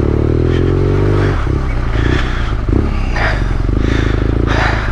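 BMW R nineT's air/oil-cooled boxer twin running at low speed on a rough dirt track. The note goes uneven as the throttle is worked about a second and a half in, then steadies again.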